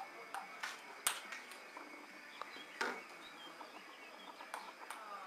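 A few scattered light taps of a table tennis ball on a paddle and table, with a faint bird chirping about three seconds in.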